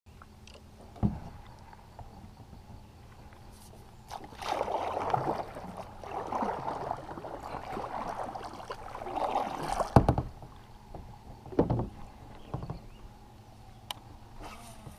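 Kayak paddle strokes splashing and sloshing in the water for several seconds, with a few sharp knocks before and after.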